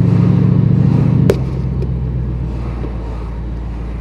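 Twin-turbo 427 cubic inch LS V8 running steadily under light throttle, heard inside the Camaro's cabin with road rumble. About a second in there is a sharp click, and the engine note falls to a quieter, lower drone.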